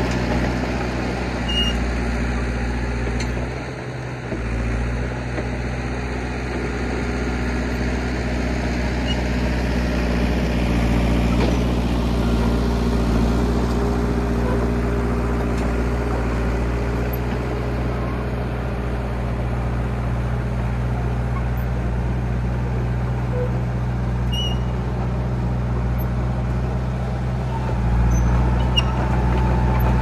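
John Deere 450B crawler bulldozer's engine running steadily while it pushes out brush and small stumps; the engine note dips briefly about four seconds in and gets louder near the end.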